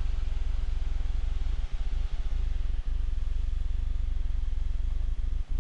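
Steady low drone of an aircraft engine heard from the cockpit during formation flight, with a few brief dips in level.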